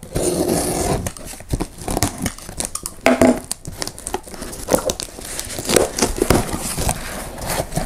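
Packing tape on a small cardboard shipping box being slit with a box cutter, then peeled and torn off by hand: irregular crackling and ripping.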